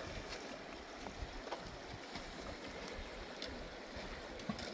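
River water flowing with a steady rushing sound, with a few faint clicks.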